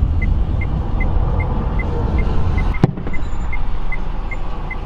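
Car on the highway, heard from inside the cabin: a steady low road and engine rumble, with a short high beep repeating evenly about two and a half times a second. One sharp knock comes about halfway through.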